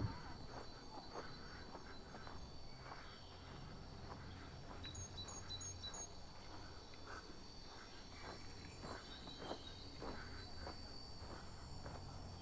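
Footsteps on snow at a steady walking pace, with a faint steady high whine underneath and four quick high chirps about five seconds in.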